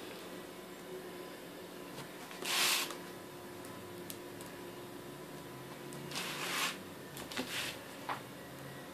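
A few short rustles of a plastic piping bag being handled and squeezed while piping small dots of black buttercream: the loudest about two and a half seconds in, more around six to seven and a half seconds, and a small click near the end. A faint steady hum runs underneath.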